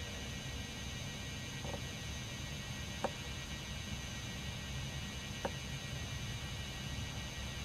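A steady low hum and hiss with a thin high whine, the kind of self-noise a camcorder makes, broken by two single sharp clicks about three seconds and five and a half seconds in.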